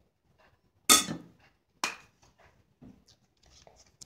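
Kitchenware knocking while chopped tomatoes are added to a wrap: two sharp knocks about a second apart, the first the loudest, then a few lighter taps.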